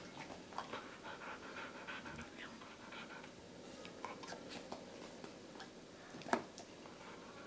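Golden retriever panting softly, with a few small clicks and one sharper knock about six seconds in.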